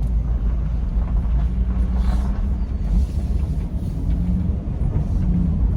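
Cabin noise of a 2013 Chevrolet Caprice PPV on the move: a steady low rumble of its V8 engine and the road.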